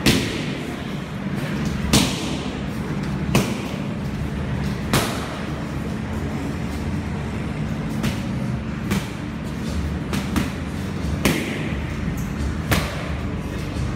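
Kicks and punches landing on Muay Thai pads held by a trainer: about nine sharp strikes, one every one to two seconds, over a steady low hum.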